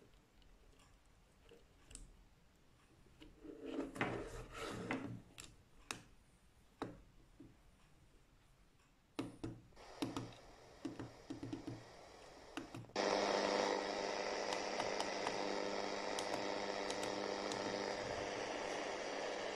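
Clicks, knocks and rubbing from handling a Retekess V115 pocket radio as its telescopic antenna is pulled out and its buttons are pressed. About thirteen seconds in, the radio's speaker suddenly comes on, playing shortwave reception of Radio Nacional da Amazônia on 11780 kHz, a steady signal under heavy static hiss.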